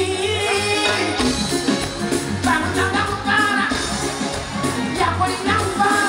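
Kadongo kamu song performed live: a man sings into a microphone over the band's backing, with a steady bass pulse underneath.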